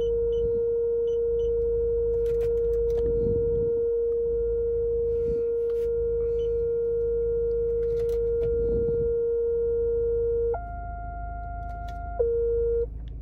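A car's parking-distance warning sounds a continuous steady tone, the signal that an obstacle is very close. About ten seconds in it jumps to a higher pitch for a second and a half, then drops back to the lower tone and stops shortly before the end.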